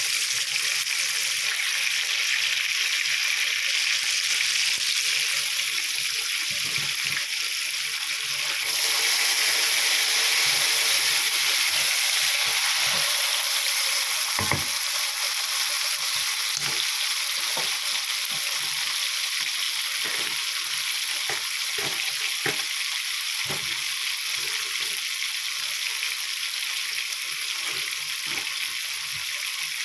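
Food sizzling in a hot pan, a steady hiss that gets louder about nine seconds in, with scattered knocks of a utensil against the pan.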